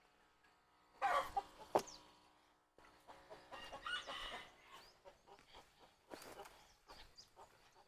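Chickens clucking in short bursts, with a louder run of calls about a second in and another around the middle, plus a sharp click near two seconds.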